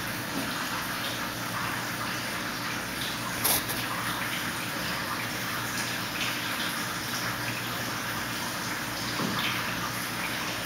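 Steady rushing of running water with a low hum under it, and one short knock about three and a half seconds in.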